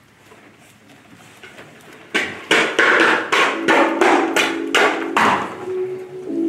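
A rapid run of about ten sharp knocks, roughly three a second, starting about two seconds in and stopping near the end. Steady ringing tones enter under the last strikes.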